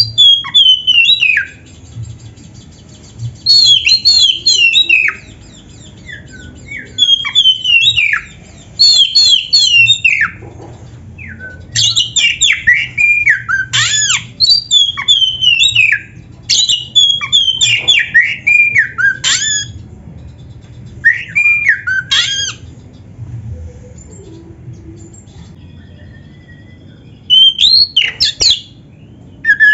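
Oriental magpie-robin (kacer) singing loudly in bursts of rapid, sliding whistled phrases a second or two long, separated by short pauses, with a longer lull before one last burst near the end. A faint steady low hum runs underneath.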